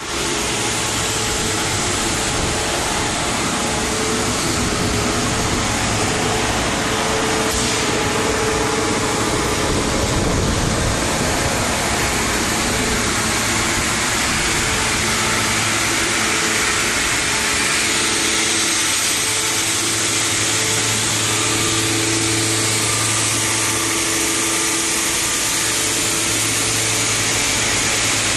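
Road shot blasting machine with vacuum dust collector running on steel plate: a loud, steady mechanical noise, a dense hiss with a low hum and a few held whining tones.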